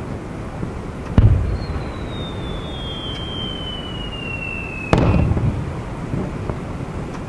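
Fireworks display: an aerial shell bursts with a sharp boom about a second in and another near five seconds, each followed by a rolling rumble. Between them a thin whistle glides slowly down in pitch and ends at the second burst.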